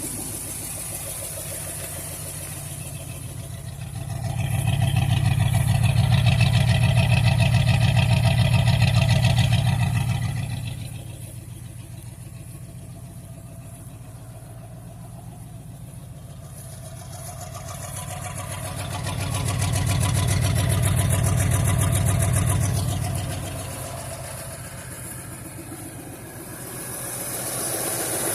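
A 1978 Ford's 351 Windsor V8 with an RV cam, running after a cold start, with a constant rhythmic "wup wup wup" that keeps pace with engine speed. The owner likens it to a dead cylinder. The engine swells louder twice and settles back each time.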